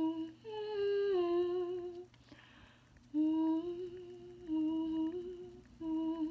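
A woman humming a tune in short phrases of held notes, with brief pauses between them.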